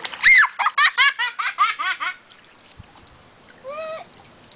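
A young child's high-pitched laughter: a quick run of about nine peals lasting some two seconds, then one short vocal sound rising and falling in pitch near the end.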